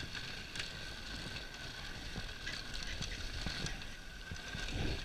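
Wooden dog sled gliding along a packed snow trail: a steady hiss of the runners on snow with scattered light clicks and knocks from the sled.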